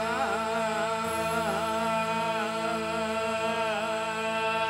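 A male folk singer holding one long, wavering sung note over a steady instrumental drone, in a Rajasthani devotional narrative song about Vishnu.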